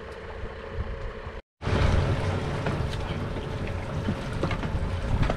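Small boat with a Mercury outboard: a steady motor and water sound, broken by a short dropout about one and a half seconds in, after which the sound is louder, with wind buffeting the microphone over the running boat.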